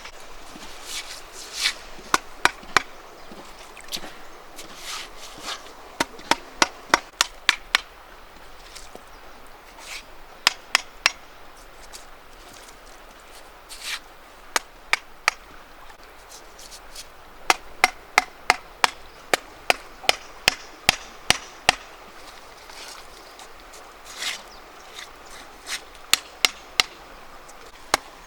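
Repeated chopping with a blade: sharp knocks in quick runs of several strokes, about three a second, with short pauses between runs.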